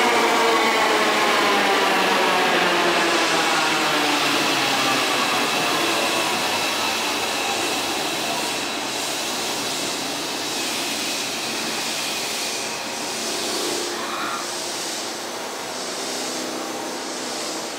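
Hankyu 1000 series train's IGBT-VVVF inverter and permanent-magnet synchronous motors whining as it brakes into the station. A stack of tones falls steadily in pitch over the first several seconds and grows quieter as the train slows.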